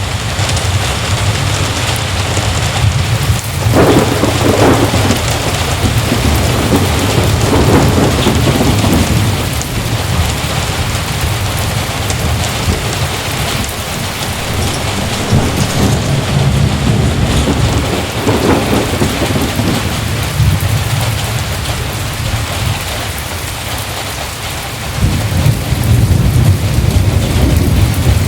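Heavy rain falling steadily, with low rumbles of thunder that swell several times and grow stronger again near the end.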